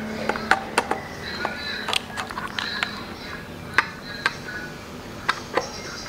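A screwdriver clicks and taps against the thermostat fittings and bolts of an electric water heater. It makes a scatter of sharp, irregular ticks of metal and plastic.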